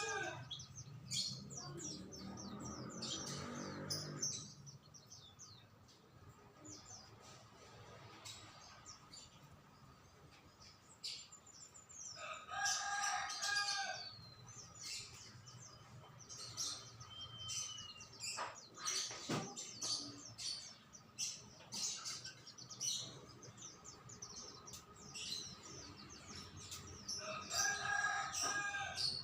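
Small birds chirping and tweeting in quick, repeated short notes throughout, with a rooster crowing twice, about halfway through and again near the end.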